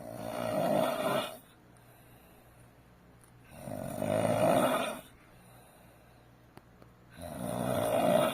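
Loud snoring: three long snores about a second each, coming every three and a half seconds or so, with quiet breathing pauses between them.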